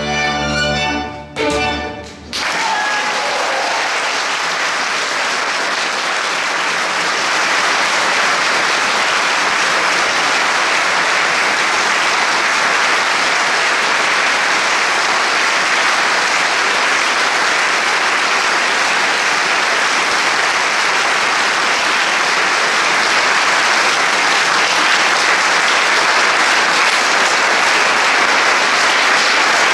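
The last notes of a violin, accordion and double bass trio, ending about two seconds in, followed by long, steady audience applause that grows a little louder a few seconds later.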